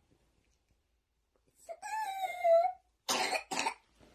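A sick young child coughing in her sleep: a high, wavering, strained breath sound about two seconds in, then two quick coughs. This is the coughing with a creepy sound afterwards of a child being treated for asthma.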